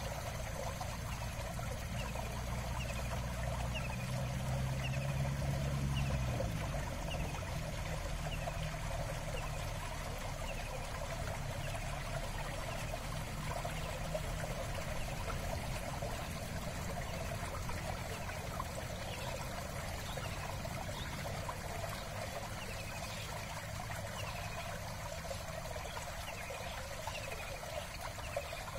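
Steady trickle of running water, with a short high chirp repeating about once a second over it.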